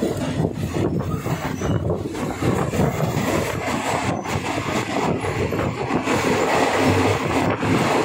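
Passenger train running along the track, a steady rumbling of wheels and carriages.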